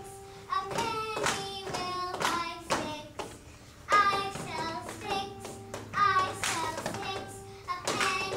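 A young girl singing a solo line, over held musical tones and a steady, sharp beat.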